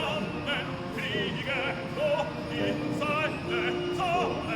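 Music with a singing voice, the held notes sung with a wide vibrato.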